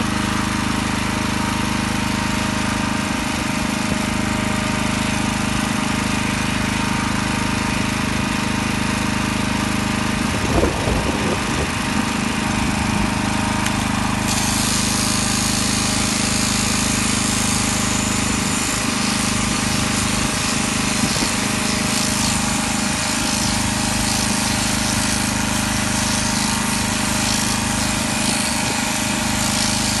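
Shearing machine running with a steady buzz as it clips a llama's fleece, with a short bout of low knocks about ten seconds in.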